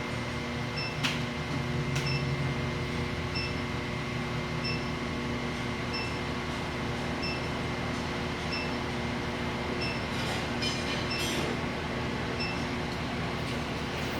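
Induction forge heater running with a steady electrical hum, faint short high beeps repeating about every second and a bit, as steel is held in its coil. A few light metallic clinks sound about ten seconds in.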